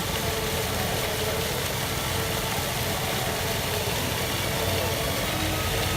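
Fountain water jets spraying, a steady even hiss.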